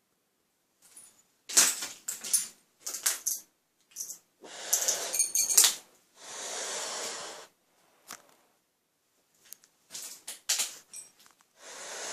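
Clatter and crunch of debris being stepped on and handled, in bursts of sharp clicks and knocks. Between them come long, even breaths drawn through a gas mask respirator.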